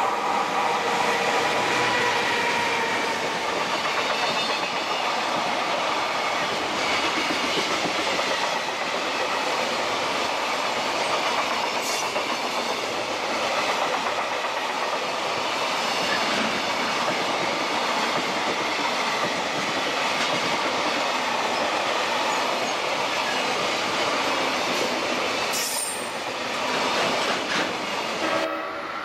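An EF210 electric locomotive and its long container freight train running past, a steady loud rush of wheel and rail noise with a few steady tones ringing over it in the first few seconds. The sound dies away near the end as the last wagon goes by.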